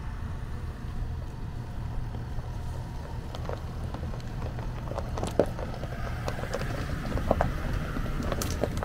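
Land Rover Defender 110 crawling past over a loose stony track: a steady low engine rumble with stones cracking and popping under the tyres, the knocks getting louder and more frequent in the second half as it passes close by.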